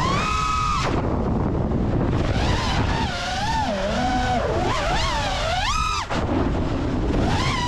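Motors and propellers of an FPV freestyle quadcopter (Ethix Stout 2306 1750 kV brushless motors) whining, the pitch swinging up and down as the throttle changes, over wind rushing on the onboard microphone. The whine climbs steeply and briefly drops out about six seconds in, then comes back.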